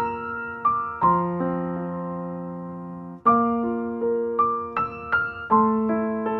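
Background music: a soft piano or electric-piano melody, with notes and chords struck and left to ring.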